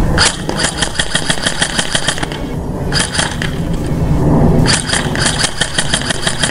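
KWA CQR Mod 2 airsoft electric rifle firing on full auto: a long burst of rapid, evenly spaced shots, a brief one about three seconds in, then another long burst near the end.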